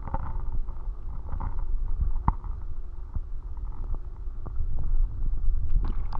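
Muffled underwater sound of a stream heard through a submerged camera: a steady low rumble of flowing water with scattered knocks and clicks, the sharpest about two seconds in.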